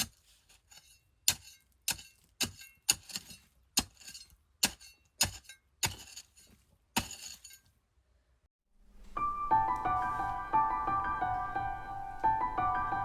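Sharp clinking strikes, about two a second, of a hand digging tool hitting stony ground while digging planting holes. They stop about seven seconds in, and after a brief gap soft piano background music begins.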